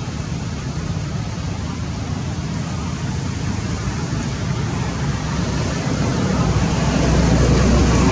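Steady outdoor background noise: a low rumble with an even hiss, swelling slightly near the end.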